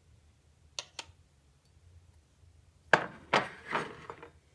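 Two light clinks about a second in, then a cluster of louder sharp knocks and clinks near the end: a glass liquor bottle and a steel jigger being set down on a countertop beside a mixing glass.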